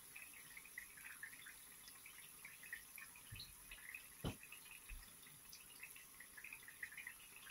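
Quiet, irregular sizzling and crackling of hot oil as stuffed vegetable pastries deep-fry in a karahi, with one louder soft knock about four seconds in.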